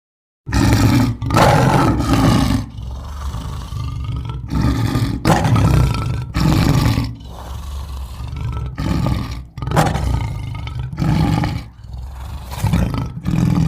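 Sound-effect roars for an owl–lion hybrid creature: a long string of loud, lion-like roars and growls following one another with only short gaps, starting about half a second in.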